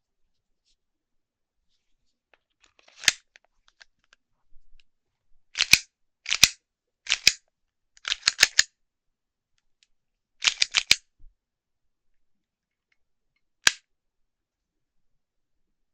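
VFC Glock 17 Gen5 airsoft pistol being handled: sharp plastic-and-metal clicks and clacks, single or in quick runs of two to four, with pauses between them. The last click is a lone one near the end.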